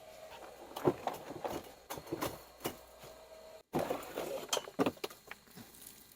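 Scattered light clicks, knocks and clinks of hand work on golf cart parts during disassembly, with a brief dropout a little over halfway through.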